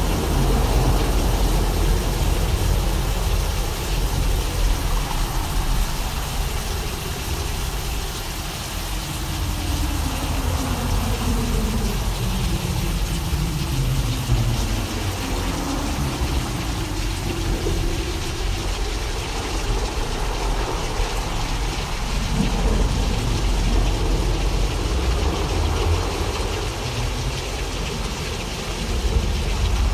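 Synthesized imitation of a thunderstorm: a steady rain-like hiss over a deep continuous rumble, with slow falling tones in the middle.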